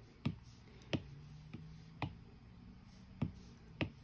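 Stylus tip tapping on an iPad's glass screen: about six light, sharp taps at uneven intervals as images are selected and moved.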